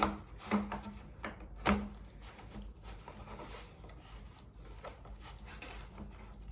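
Bassinet parts being handled and fitted together: three sharp knocks in the first two seconds, then quieter rubbing and light handling noise as the musical attachment is worked into place.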